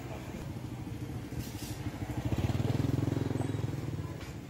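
A motorbike engine passing on the street, growing louder about halfway through and fading again near the end.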